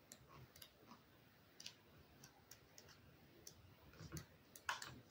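Faint, sparse clicks and light rustles of paperback guidebook pages being turned by hand, with a slightly louder flurry near the end.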